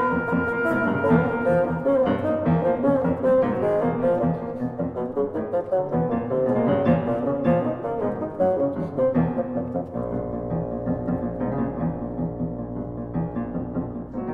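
Chamber music for oboe, bassoon and piano: a busy passage of quick repeated notes, thinning out about ten seconds in over a held low note.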